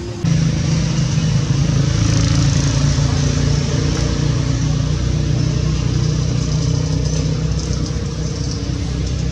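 A motor engine running steadily with a low, even hum, starting abruptly just after the start.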